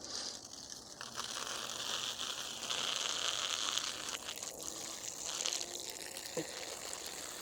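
A stream of urine splashing, starting suddenly and running as a steady hissing trickle.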